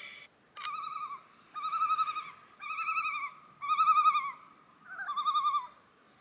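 Common loon giving its tremolo call: a series of five quavering, laughing calls about a second apart.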